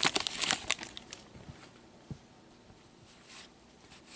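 Wrapper of a hockey card pack crinkling as it is torn open and handled, fading out about a second in; after that, only faint rustles and small ticks of cards being handled.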